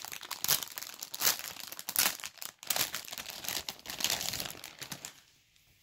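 Plastic squishy-toy packaging bag crinkling and crackling as it is torn open by hand, in a fast, irregular run that stops about five seconds in.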